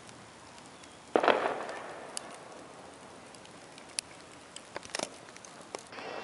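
Fireworks catching light with a sudden loud rush about a second in that fades over the next second, followed by a few scattered sharp crackles and pops.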